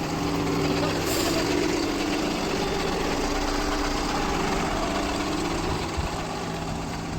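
Heavy diesel engine idling steadily, a low, even hum with no revving.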